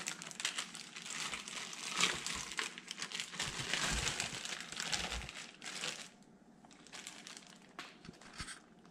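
Plastic zip-top freezer bag crinkling and rustling while raw chicken is shaken out of it into a slow cooker. After about six seconds it goes quiet except for a few faint taps.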